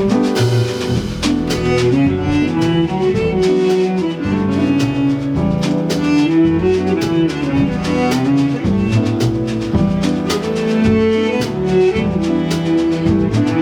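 Instrumental jazz-style music with a steady beat: a bass line and melody notes over regular percussion strikes.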